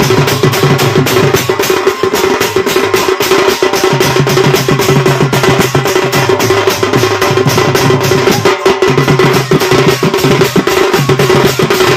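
Live Odia Danda Nrutya folk music: a dhol beaten fast and evenly with a stick, about five strokes a second, over a steady held tone.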